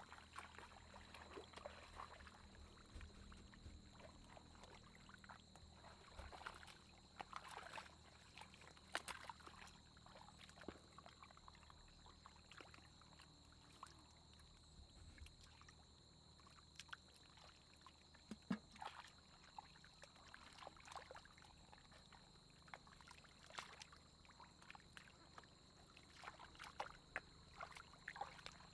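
Faint sloshing and small irregular splashes of hands groping through mud and shallow water, under a steady faint high whine.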